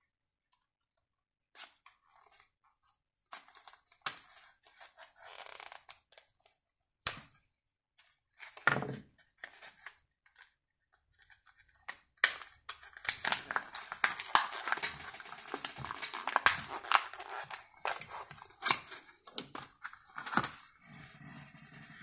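Stiff plastic blister packaging being cut and torn open with scissors: a few scattered snips and clicks at first, then a dense run of plastic crackling through the second half.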